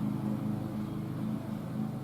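An engine idling steadily, a low hum with a slight regular pulse.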